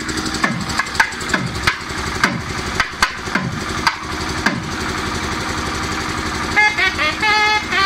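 Festival drums struck in a steady rhythm, about two strokes a second, each stroke followed by a low, falling growl, over a steady low drone. Near the end a high melodic line with bending notes comes in.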